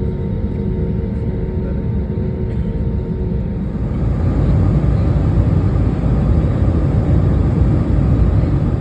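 Loud, steady low rumble of a moving vehicle, growing louder about four seconds in.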